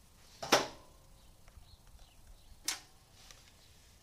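Two sharp metallic clicks with a short ring, the first and loudest about half a second in and the second about two seconds later, as pliers work on a MIG welding gun's front end, where the gas nozzle is being taken off.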